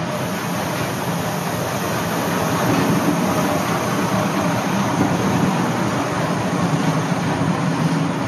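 Diesel railbus E79960 standing with its underfloor engine idling, a steady low hum that swells slightly midway.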